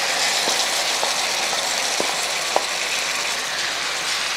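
Marinated beef strips frying in hot oil in a nonstick pan, a steady sizzle as the wet meat has just gone in, with a few light taps of a wooden spatula on the pan.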